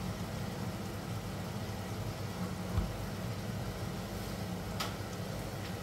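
Steady low hum with a single dull knock about three seconds in and a short sharp click near the end.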